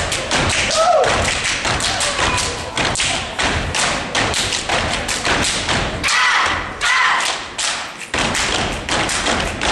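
A step team stepping: unison foot stomps on a wooden stage with hand claps, in a fast, steady rhythm.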